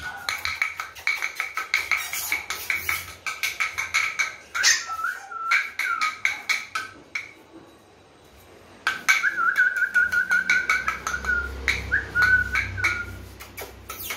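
A person whistling a wavering note and making rapid clicking, kissing sounds to call a litter of German Spitz puppies. The sound breaks off briefly about halfway through, then the whistling and clicking resume.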